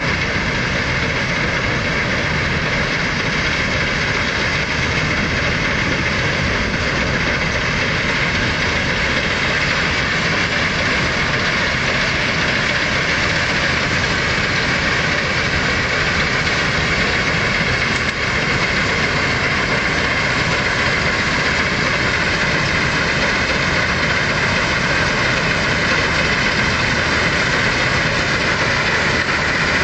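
Combine harvesters cutting rapeseed, their engines and threshing machinery running steadily with a constant high whine over a low rumble.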